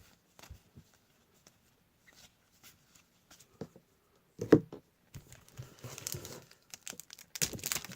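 Trading-card pack wrappers crinkling and being torn open, with faint handling ticks early on giving way to denser crinkling near the end. One sharp knock about halfway through.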